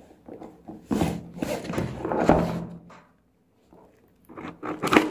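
Cardboard box wrapped in packing tape being handled and torn open by hand: irregular scraping and rustling of cardboard and tape, with a brief silence about three seconds in.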